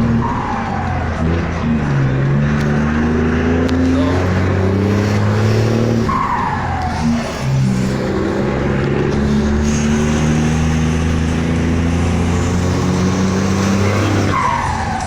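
Volkswagen 24.250 truck's diesel engine running under load with a deep, steady note. The pitch drops twice, about six seconds in and near the end, and each drop comes with a short falling whistle.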